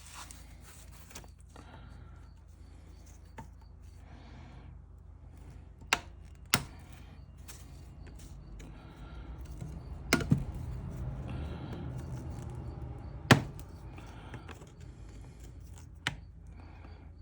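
Hand tools working on a small metal sending unit: scattered sharp clicks and knocks, six of them, a pair about half a second apart, over a low steady hum.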